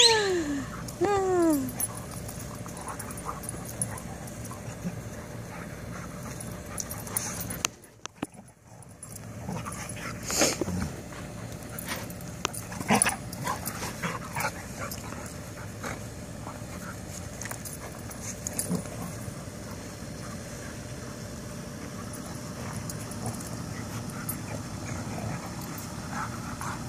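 Two dogs play-wrestling: a few high, falling whines in the first two seconds, then scuffling with scattered short sharp sounds.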